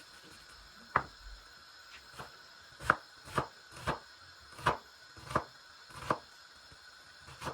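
Kitchen knife chopping onions on a cutting board: about nine separate sharp chops at an uneven pace, starting about a second in.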